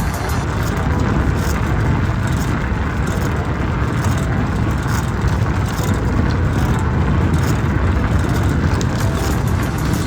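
Steady wind rumble on the microphone of a camera moving along the trail, with a constant rolling noise underneath and a few faint clicks.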